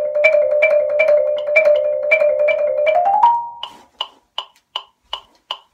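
Marimba played with mallets in a fast passage that climbs in pitch and stops about three and a half seconds in. Under it a metronome clicks steadily, about two and a half times a second, and carries on alone after the playing ends.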